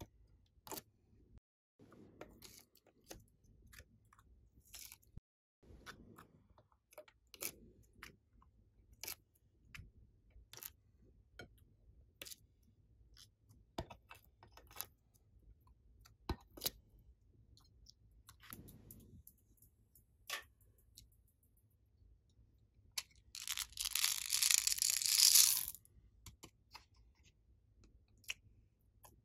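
Clicks and taps of clear plastic slime trays being handled, with soft squishes as slime and clay are pressed out into a glass bowl. Near the end, a loud rattling hiss of about three seconds as small foam beads are poured onto the slime.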